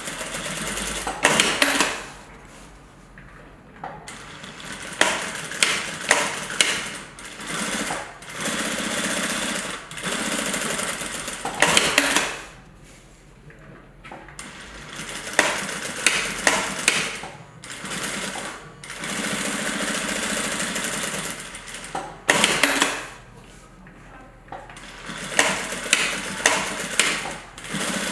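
Sewing machine stitching through waxed canvas, running in stretches of several seconds and stopping briefly three times between seams.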